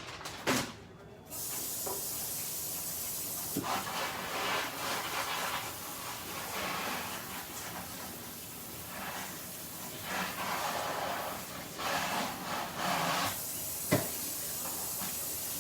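Kitchen tap water running and splashing as seafood is rinsed off under it. The hiss starts about a second in, and a couple of light knocks come through it.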